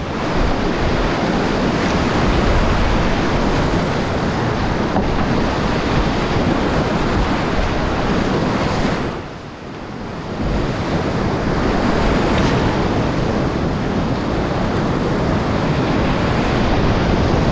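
Whitewater rapids rushing loudly close to a kayak, with a brief dip in level about nine seconds in.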